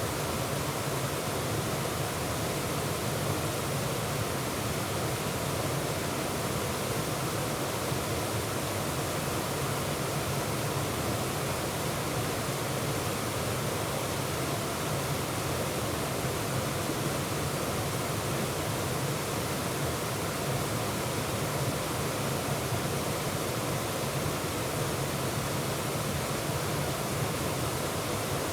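Waterfall pouring over rocks into a stream: a steady, even rush of falling water.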